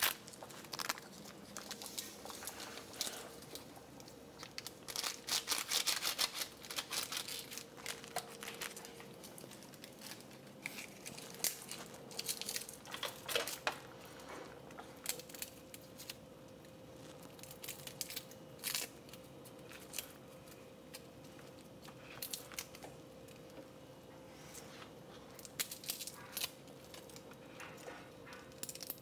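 Dry, papery garlic skins crackling and tearing as cloves are peeled by hand, heard as a string of small crinkling clicks that is busiest about five to seven seconds in. A faint steady hum runs underneath.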